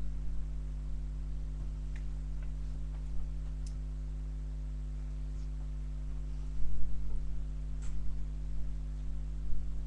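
Steady low electrical hum with scattered light clicks, and a short cluster of louder knocks about two-thirds of the way through.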